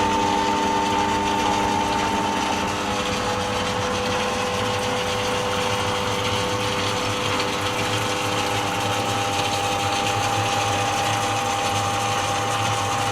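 Myford ML7 lathe running under its electric motor: a steady mechanical whirr of belt and meshing gears with a constant whine.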